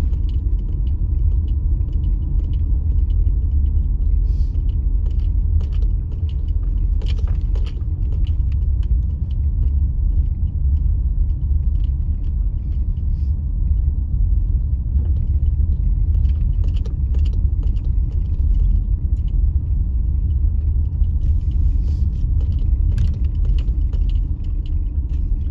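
Road noise inside a moving car: a steady low rumble of tyres and engine, with small rattles and clicks scattered through it.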